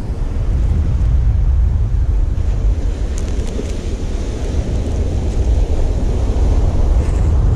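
Wind buffeting the microphone, steady and heavy, over ocean surf washing onto the beach.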